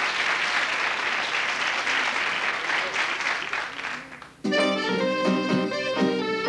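A studio audience applauding, the clapping dying away about four seconds in; then an instrumental ensemble abruptly strikes up a tune.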